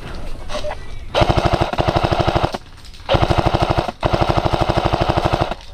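Airsoft PKM electric machine gun firing three long full-auto bursts: a rapid, even mechanical rattle of the gearbox cycling. The first starts about a second in and lasts over a second; after a short pause come two more, almost run together.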